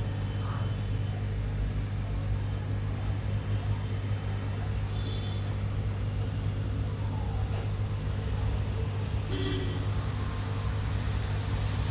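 Aquarium pump running with a steady low electric hum. A few faint high chirps come through about halfway in.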